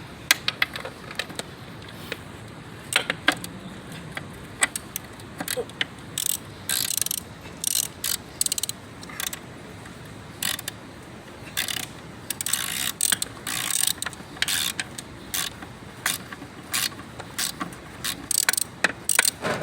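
Hand tools working loose the bolts of a transmission oil pan: irregular runs of quick metallic clicks, with single clicks in between.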